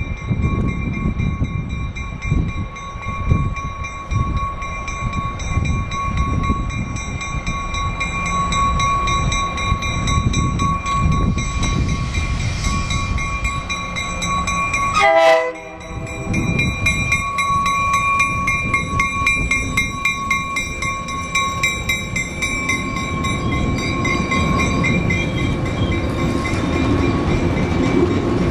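MBTA push-pull commuter train, a diesel locomotive pushing from the rear, rumbling out of the station and passing close by, with a steady high whine throughout. A short sharp sound about halfway through briefly interrupts the rumble.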